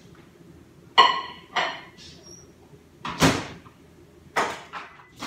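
Microwave door shutting with a sharp clack that rings briefly, about a second in, followed by a few short knocks and clatters of things being handled on a kitchen counter.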